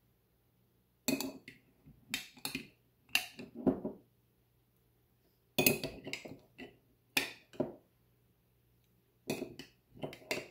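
A metal spoon clinking and scraping against a glass jar and a glass bowl as solid coconut oil is scooped out and knocked off into the bowl. The clinks come in short clusters, with quiet gaps between.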